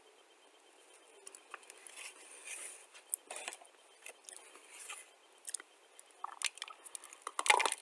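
A person chewing a chunk of clay close to the microphone: soft scattered mouth clicks and crackles, then louder crisp crunches near the end as a fresh bite is taken.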